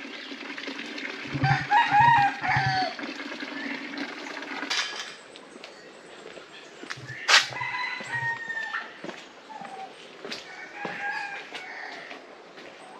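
Rooster crowing, twice and then more faintly a third time, with a few low thuds under each of the first two crows and a sharp click before the second.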